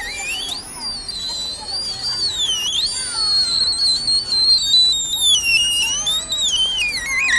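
Homemade electronic bird-sound device built from recycled circuits, giving out a synthetic bird-like warble: one high whistling tone that slides up and down without a break and sinks lower near the end.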